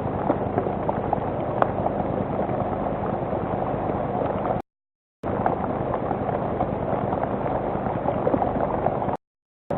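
Steady rain falling, a dense hiss with scattered drop ticks, heard dull through a webcam's microphone. The sound cuts out completely twice for about half a second.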